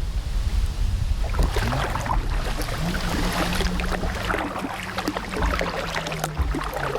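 Kayak paddling: water splashing and dripping off the paddle blades in many small ticks and splashes, over a low rumble of wind on the microphone. A faint low hum rises in pitch a couple of times early on, then holds steady.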